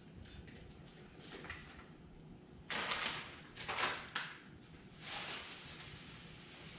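A cloth towel rubbing and wiping small steel rifle parts clean of powder residue: three short bursts of scuffing, the last near the end the strongest and hissiest.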